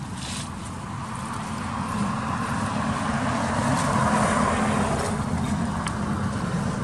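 A car passing on the road: its tyre and engine noise swells to a peak about four seconds in, then fades away.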